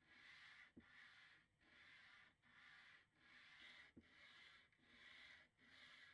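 Faint hand-sanding of a wooden record player case with sandpaper, in steady back-and-forth strokes about one every three quarters of a second. There are two light knocks, about a second in and again near four seconds.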